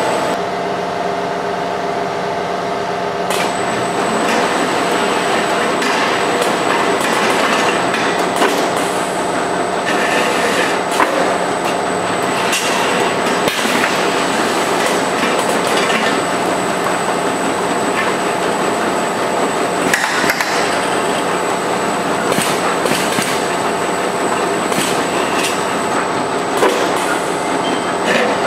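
Net-weight can filling line running: metal gallon cans knock and clatter against each other and the conveyor over a steady machine hum. A high thin whine joins about three seconds in.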